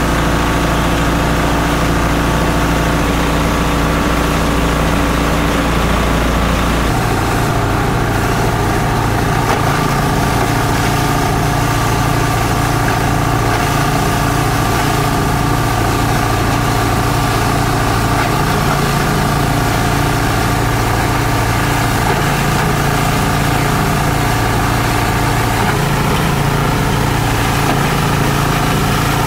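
Esteban multi-purpose chopper-shredder running steadily as it shreds books and bank notes: a loud, constant machine drone whose low hum shifts about seven seconds in.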